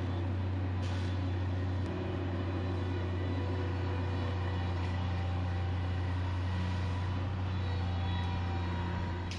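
Engine of a stand-on compact track loader running steadily at a constant speed while it spreads gravel, with a few faint knocks.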